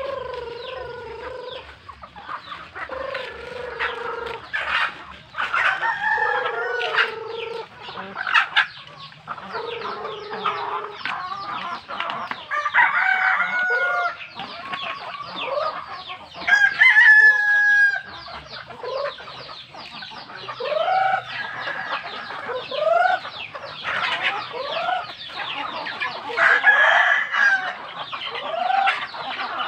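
A flock of chickens clucking and calling over one another, with a rooster crowing.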